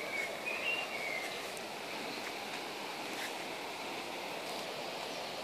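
Garden ambience: a steady hiss of breeze through the leaves, with a few short bird chirps in the first second or so.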